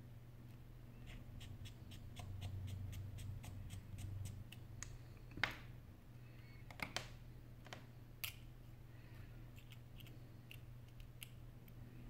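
Small, faint clicks and ticks of a precision screwdriver and fingertips on the metal parts inside an opened iPhone 8 Plus: a quick run of light ticks in the first few seconds, then a few sharper single clicks around the middle, over a low steady hum.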